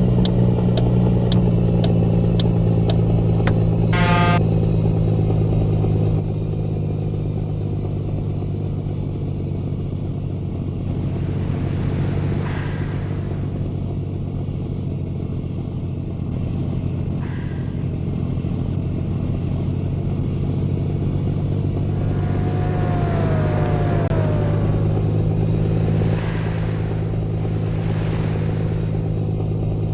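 Truck engine droning steadily while driving, with regular ticking in the first few seconds and a short tone about four seconds in.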